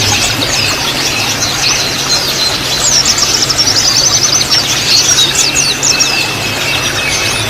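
White-eyes (pleci) chattering: many quick, high, falling twitters that crowd together in the middle, over a steady low hum.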